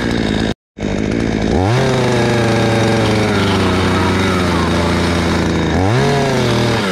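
Fortec two-stroke petrol chainsaw: the engine runs down toward idle, with a split-second break in the sound just after half a second in, then revs up to full throttle about a second and a half in and holds there for about four seconds. Near the end it dips, revs up again and starts to ease back.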